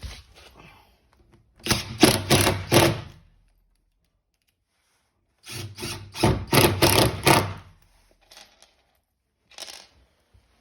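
Power tool driving fixings during a door installation: two bursts of rapid mechanical rattling, each about one and a half to two seconds long, then a single short crack near the end.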